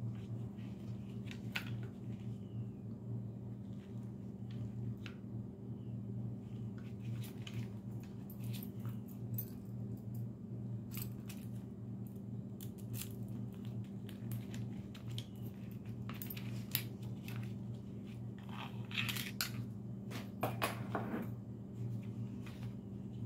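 Small metallic clicks, taps and scrapes of a pistol's slide, barrel and recoil spring being handled and fitted together, with a denser run of louder clicks near the end. A steady low hum runs underneath.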